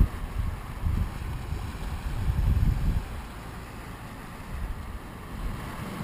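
Wind buffeting the camera's microphone in irregular low rumbling gusts, strongest in the first three seconds and calmer after, over a steady hiss.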